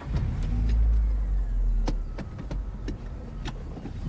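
Car driving, heard from inside the cabin: a steady low engine and road rumble, loudest in the first two seconds, with a few sharp clicks over it.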